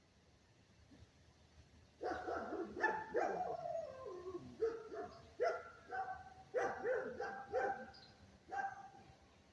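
A pet animal calling over and over: about a dozen short, pitched cries, some sliding down in pitch. They start about two seconds in and come in quick succession.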